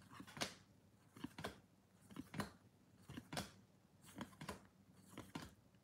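Baseball cards being slid off a stack one at a time, faint soft flicks about once a second.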